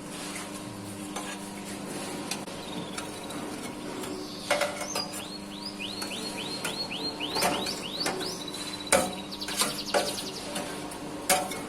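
Abon cooking machine running: a steady motor hum under the scraping and clinking of its stirrer against the metal pan. A run of short, high, rising squeaks comes in the middle.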